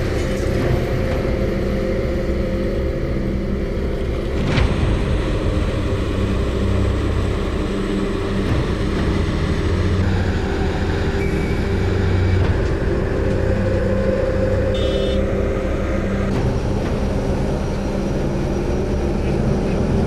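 Heavy diesel engines of road-construction machinery and trucks running steadily, a low engine rumble that shifts abruptly three times.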